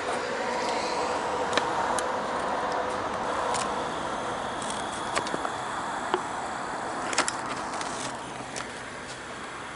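Steady outdoor background noise, with scattered light clicks and taps.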